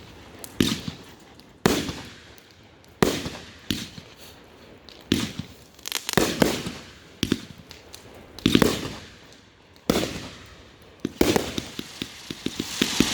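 Consumer aerial fireworks going off: a series of sharp booms about a second apart, each trailing off in an echo. Near the end comes a quick run of small cracks.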